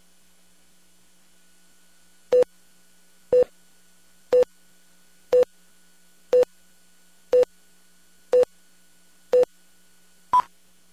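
Countdown leader beeps on a broadcast slate: a short tone once a second, eight times at one pitch, then a final beep at a higher pitch near the end, over a faint steady hum.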